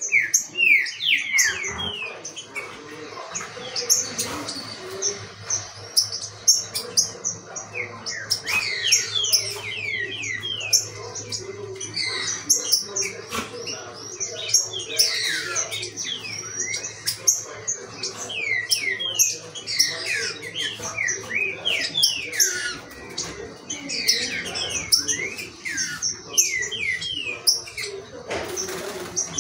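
Caged green-winged saltators (trinca-ferro) singing and chirping, many quick sweeping notes overlapping without a break, over a faint steady low hum.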